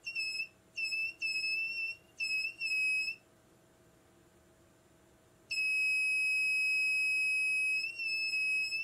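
Inductive short locator's buzzer giving a high, electronic beep as the pickup probe is held over a car ECU circuit board, signalling that it is picking up the short. A string of short, uneven beeps comes first, then about two seconds of quiet. After that comes a long steady tone that breaks into shorter beeps near the end.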